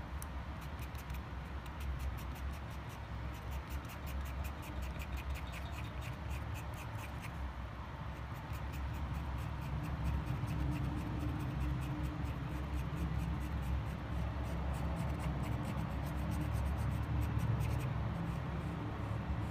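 Paint marker's felt tip scratching on a rough stone in quick, regular short strokes while an area is coloured in, over a steady low hum.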